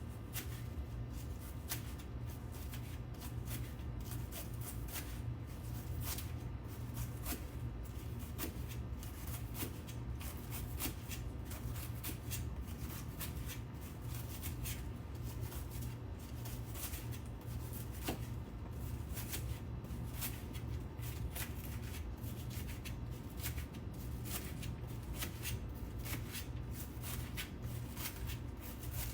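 A knife slicing through a head of cabbage on a cutting board, cutting thin shreds: a quick, irregular run of crisp cuts, several a second.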